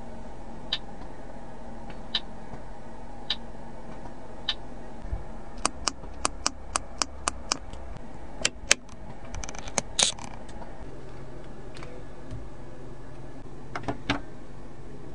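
Clicks of buttons and switches in a Hongqi LS7's cabin. Single clicks come about a second apart, then a quick run of about eight clicks, a few louder clicks past the middle, and a couple more near the end, all over a steady low hum.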